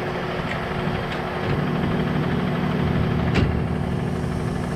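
Vehicle engine idling steadily, with a single sharp metallic click about three and a half seconds in.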